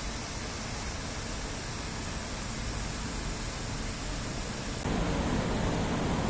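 Steady rush of falling water from the Fountain of Wealth's central jet and ring of water curtains splashing into the basin. About five seconds in it gives way abruptly to a louder, deeper steady rushing noise.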